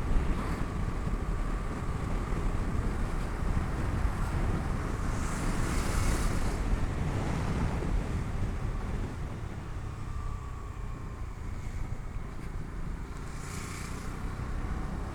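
Wind buffeting the microphone over the running single-cylinder engine of a Bajaj Dominar 250 carrying a passenger at road speed. The rush is steady and eases slightly in the second half.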